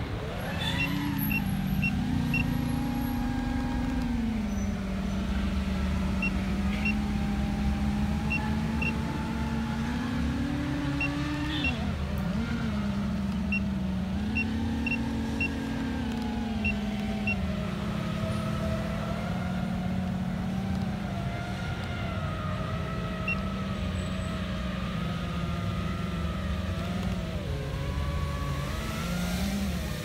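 FPV quadcopter's brushless motors and propellers buzzing in flight, heard from on board. The pitch swells and dips with the throttle, with a sharp drop about twelve seconds in.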